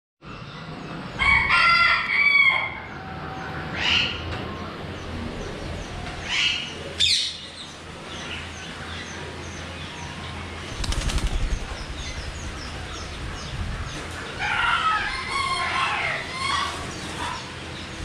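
Caged birds calling in a bird room: loud harsh calls about a second in and again near the end, a few shorter sweeping calls between, over a faint, fast high chirping that never stops. A brief low rumble about eleven seconds in.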